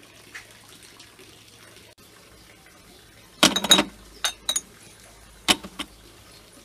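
Tea glasses and dishes clinking: a quick cluster of ringing clinks about halfway through, two lighter clicks just after, and one more sharp clink near the end.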